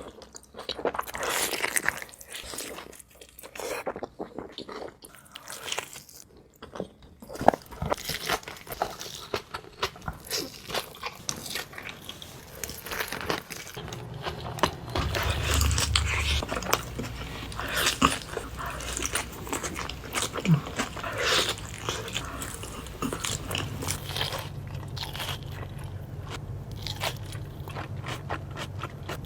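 Close-miked eating: wet biting and chewing of a Flying Dutchman, beef patties with melted cheese and onion, in irregular crunches and mouth clicks.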